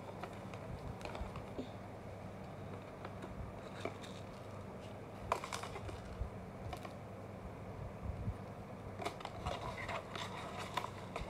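Scattered small clicks and rustles of a cardboard candy-kit box and its packaging being handled, with a sharper click about five seconds in and a cluster of them near the end, over a faint steady low hum.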